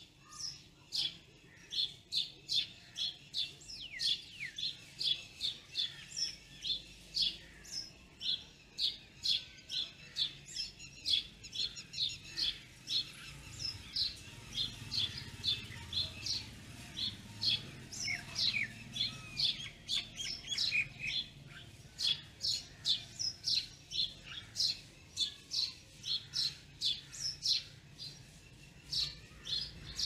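Birds chirping without a break: short, high chirps come two or three a second, with a few sliding calls about two-thirds of the way through.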